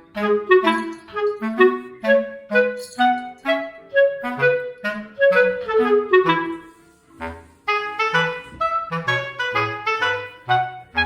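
Background music: a quick melody of short pitched notes over a bass line, dipping briefly about seven seconds in.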